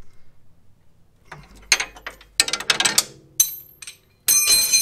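Steel wrench clicking and clanking against the tie-rod end nut and suspension parts as the bolt is snugged up, a string of separate metallic clicks. Near the end, a loud metallic clatter with high ringing, as of tools knocked or set down.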